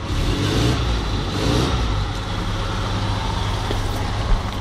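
Toyota Hilux pickup's engine running steadily as the truck crawls along a muddy rut.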